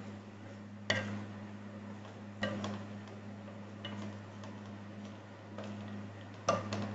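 Wooden spatula stirring food in a speckled non-stick frying pan. It knocks sharply against the pan a few times, loudest about a second in and again near the end, over a steady low hum.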